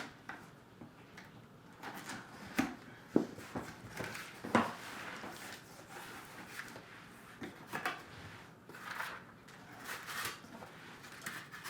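Cardboard box and packaging being opened and handled: irregular scrapes, rustles and a few sharp knocks, the sharpest about three seconds in and again a second and a half later.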